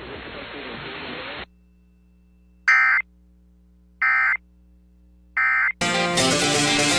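Radio hiss cutting off about a second and a half in, then the Emergency Alert System end-of-message signal: three short, shrill digital data bursts about a second and a third apart. Near the end a loud, full-range electronic sound lasting about a second and a half.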